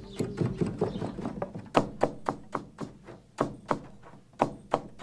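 Sharp wooden-sounding taps and knocks from a weaver working at a hand-knotted rug loom, irregular, about two a second.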